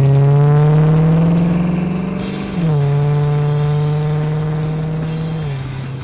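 1970 Ford Mustang's V8 accelerating, its engine pitch climbing, then dropping sharply at a gear change about two and a half seconds in, climbing again and dropping once more near the end.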